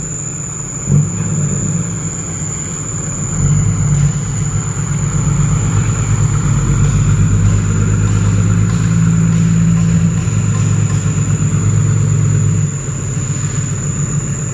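Diesel engines of loaded dump trucks driving slowly past in a line, steady and low; the engine sound swells as a sand-laden Mitsubishi Fuso dump truck passes close, then drops off about two seconds before the end as it moves away.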